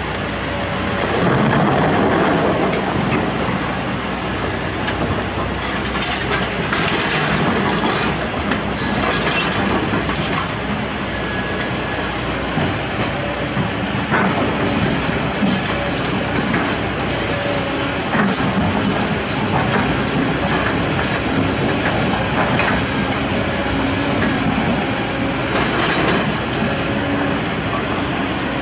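Kobelco SK200 hydraulic excavator's diesel engine running as the bucket digs rocks from the riverbed, with rocks scraping and knocking against the steel bucket several times, over a steady rush of river water.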